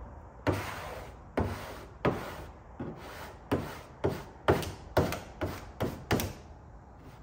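Squeegee strokes rubbing the dry-applied vinyl hood stripe down onto the hood, about a dozen quick swipes that each start sharp and fade, coming faster toward the end before stopping.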